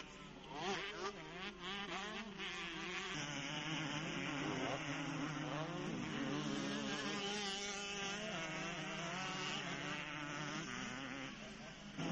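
Several motocross bikes' engines buzzing at once, their pitch rising and falling as the riders rev through the gears, louder from about three seconds in.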